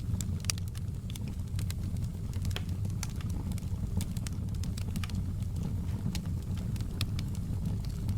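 Open log fire burning in a fireplace: a steady low rumble of the flames with frequent irregular sharp crackles and pops from the burning wood.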